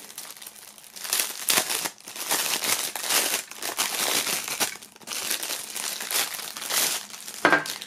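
Clear plastic film crinkling in bouts as hands pull it off a stainless steel hip flask.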